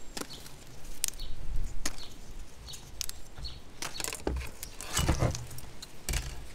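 Ficus leaves being plucked off by hand: a scattered series of small snaps and rustles, about one a second, as each leaf is pulled from the branch.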